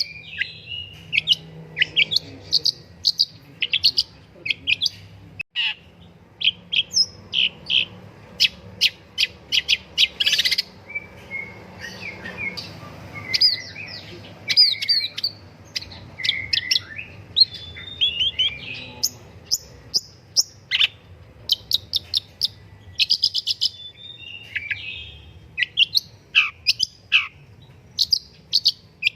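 Long-tailed shrike (pentet) singing a fast, varied run of short chirps, whistles and quick high chips, with hardly a pause.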